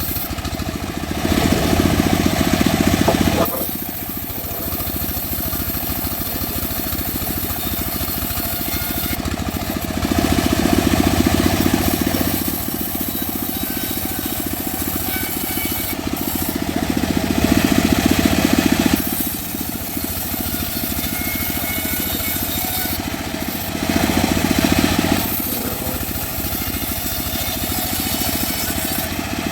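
A homemade bandsaw mill running steadily. It grows louder four times, for two or three seconds each.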